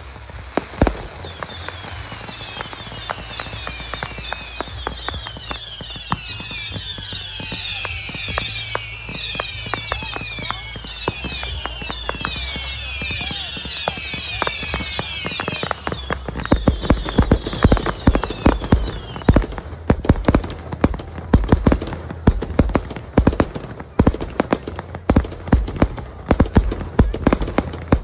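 Fireworks going off: many whistling fireworks sound together over steady crackling, each whistle falling in pitch. About halfway through the whistles stop and a rapid run of louder pops and bangs takes over.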